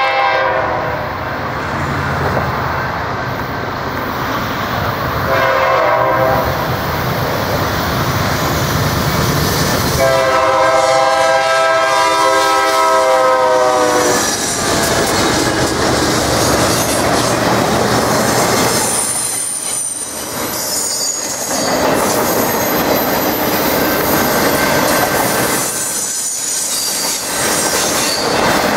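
Horn of a BNSF C44-9W locomotive leading a freight train: one blast ending about a second in, a short blast around five seconds in, and a long blast from about ten to fourteen seconds. The locomotives then pass close by, followed by the rumble and clickety-clack of autorack cars rolling over the rails, with some wheel squeal about twenty seconds in.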